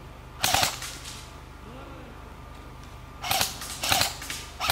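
Airsoft rifle firing short bursts of rapid shots: one burst about half a second in, then three more in quick succession near the end.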